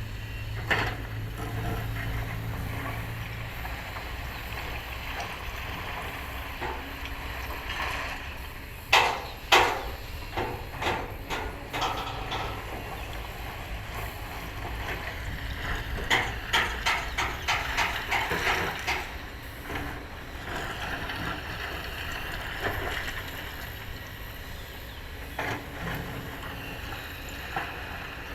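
Kobelco excavator's diesel engine running steadily, with two sharp knocks about nine seconds in, then a quick run of clanks and knocks a few seconds later: the machine at work digging rock.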